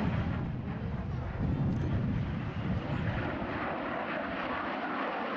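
Fixed-wing aircraft engine noise: a steady deep rumble that thins out about three seconds in, leaving a higher rushing sound.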